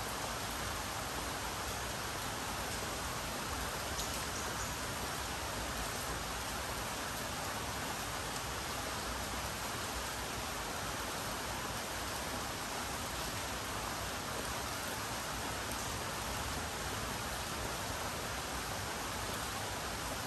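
Steady rain falling, an even hiss with a few faint ticks of drops.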